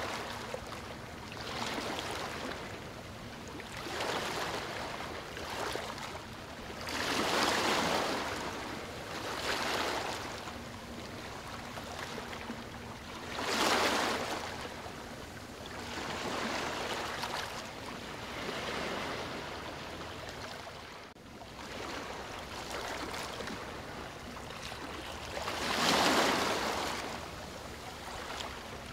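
Rushing water that swells and fades every few seconds, like surf washing in, with a few swells much louder than the rest.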